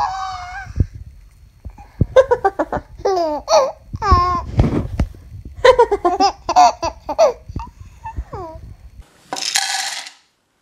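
An infant laughing in a run of short bursts that rise and fall in pitch. Near the end, dry dog kibble is poured from a bag into a dog bowl, a brief rattling hiss.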